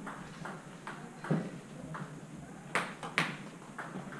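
Table tennis ball clicking off the players' bats and the table as a point is played: a string of sharp, irregular ticks, the loudest a little after one second and near three seconds in.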